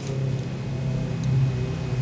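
A steady low mechanical hum, swelling slightly in loudness about halfway through.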